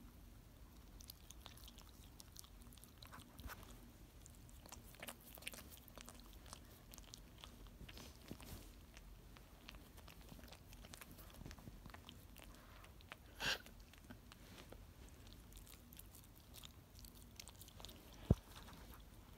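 Pekingese dog chewing and nibbling at a foot through a fleece blanket, close to the microphone: faint, scattered small clicks and rustles, with one louder scuffle about two-thirds of the way through and a sharp click near the end.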